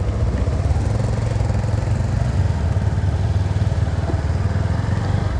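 Motorcycle engine running at low revs with a steady low throb as the bike rolls slowly forward.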